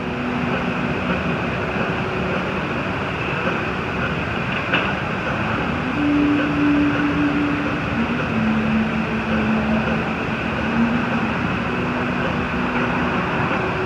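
Steady roar of a glassblowing studio's gas-fired furnace and glory-hole burners, with a few short low tones coming and going about halfway through.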